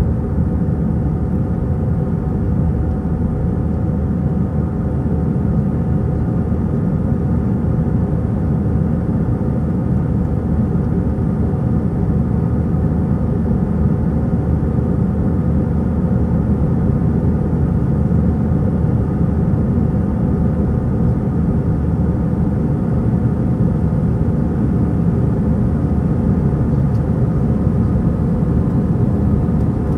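Airbus A320 jet engines heard from inside the cabin during the climb after takeoff: a steady low drone and rumble, with a few faint steady tones above it.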